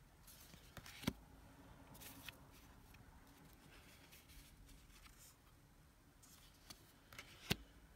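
Tarot cards being handled: faint sliding and rustling of card stock as cards are pulled off the decks, with two sharp taps, about a second in and near the end.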